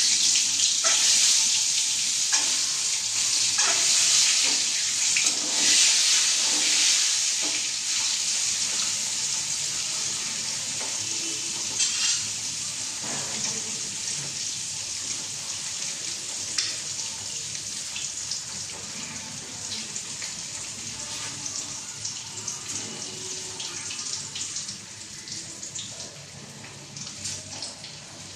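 Peeled boiled eggs sizzling in hot oil in a steel kadai, the hiss starting suddenly as they go in, with scattered crackling spatters. The sizzle slowly dies down.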